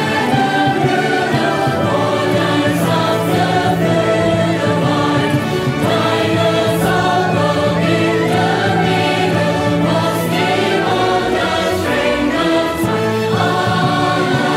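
Virtual choir of young men's and women's voices singing a song together, recorded separately and blended into one chorus.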